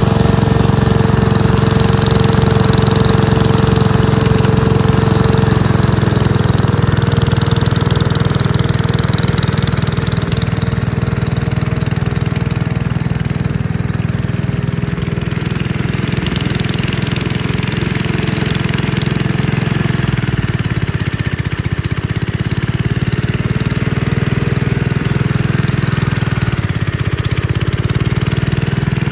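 Gravely Commercial 10A walk-behind tractor engine running steadily while driving a Dogeater snowblower attachment. The engine note sags briefly and recovers twice, about two-thirds of the way in and again near the end.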